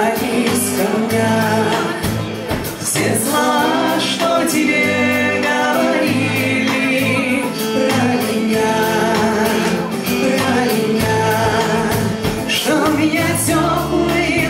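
Live folk-rock band playing, with a sung voice over amplified instruments, including a bowed fiddle, heard through the concert sound system.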